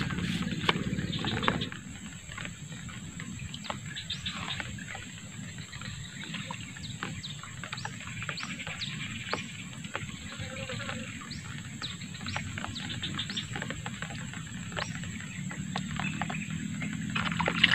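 Wild birds calling: a long run of short, high, falling whistle notes repeating irregularly, over a steady high insect-like drone. The first second and a half holds louder knocks and rustling as a fish is lifted from the water on the line.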